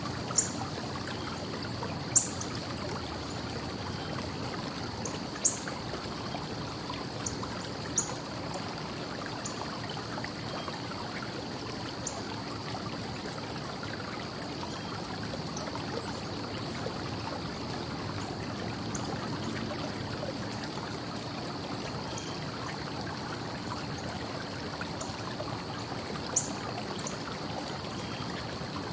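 Steady rush of distant traffic, with a faint low hum and a thin steady high tone under it. Short high bird chirps come now and then, the loudest about two, five and eight seconds in and again near the end.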